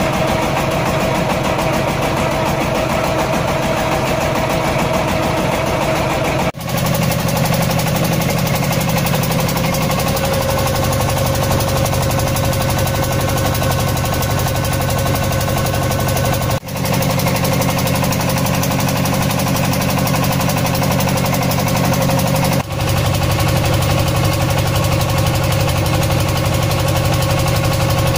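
Boat engine running steadily with a loud, even drone. It breaks off briefly three times where the footage is cut.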